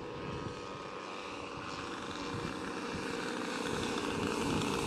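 Twin propeller engines of a giant-scale radio-controlled Grumman S-2 Tracker model running steadily on landing approach, growing gradually louder as the plane comes in low toward the runway.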